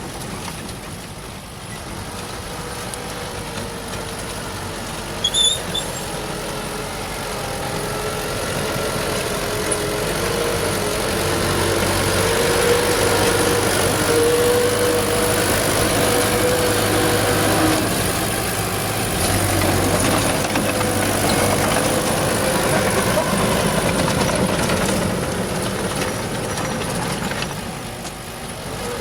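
Old Furukawa bulldozer's diesel engine running steadily, with a slightly wavering pitch, growing louder from about eight seconds in and easing off near the end. There is a brief high squeak about five seconds in.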